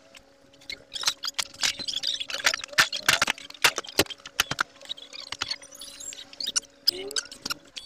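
Cargo being handled in a truck's metal cargo box: irregular knocks, clatters and rustling of boxes and plastic-wrapped sacks being moved, over a steady low electrical hum that stops near the end.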